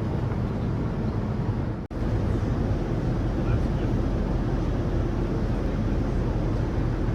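Steady cabin noise of a Boeing 787-9 airliner: an even rumble and rush of engines and airflow, heaviest in the low range. The noise drops out for an instant about two seconds in, then carries on the same.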